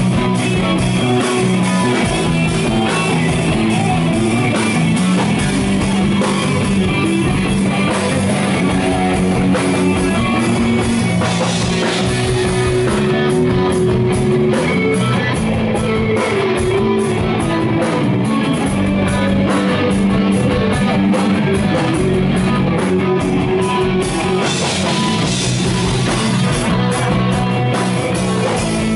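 Rock band playing live: electric guitar with bass guitar and a drum kit, with fast, evenly spaced cymbal strokes through the middle stretch.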